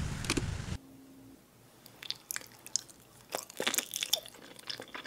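Close-miked eating of ripe mango slices: irregular wet clicks, smacks and squishes of biting and chewing, starting about two seconds in. A low outdoor background noise cuts off abruptly before them.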